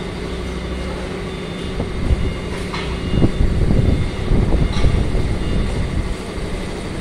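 An engine running steadily with a constant hum, with heavier, uneven low rumbling from about two to five seconds in.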